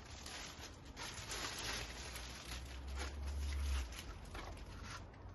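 Rustling and light knocking as the trimmer parts and their packaging are handled, in irregular bursts with a low rumble in the middle.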